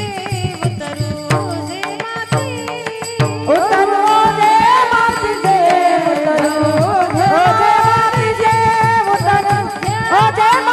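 A woman singing a Marathi devotional kirtan, with a steady drone and regular hand-drum strokes. About three and a half seconds in, the voice glides up into a long, ornamented high line.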